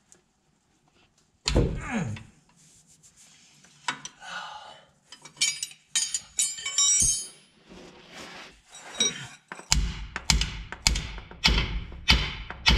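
Hand tools on a truck's drive-axle brake chamber mount. A heavy thunk comes about a second and a half in, then metal tools clink against each other. From about ten seconds in, a wrench ratchets steadily on the chamber's mounting nut at about two strokes a second.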